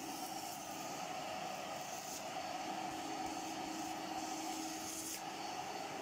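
A 1979 Hitachi CV-95N commercial tub vacuum cleaner's 800-watt motor running steadily with a constant whine. The rush of air in the hose shifts a few times as the hose and wand are moved.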